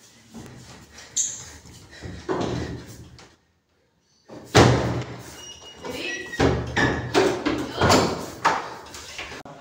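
A heavy wooden door banging and rattling as its handle and a sliding bolt are worked, in a series of sharp knocks and thuds. The sound drops out for about a second partway through, and the loudest bang comes just after.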